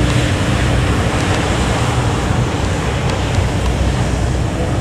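Steady rush of water and wind on the open deck of a river tour boat under way, with a low engine rumble beneath and churning wake from a fast catamaran passing close alongside.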